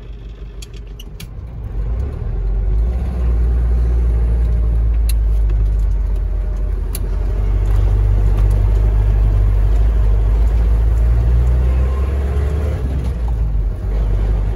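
Iveco TurboDaily 4x4's diesel engine and tyres heard from inside the cab, a steady low rumble as the truck drives along a gravel road, growing louder about two seconds in. A couple of sharp ticks stand out over it.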